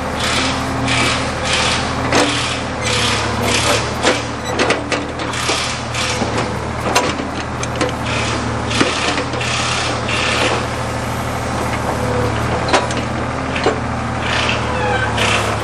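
Backhoe engine running steadily under load, with repeated cracks, creaks and scraping from wood as the bucket works at a tree stump that is not budging.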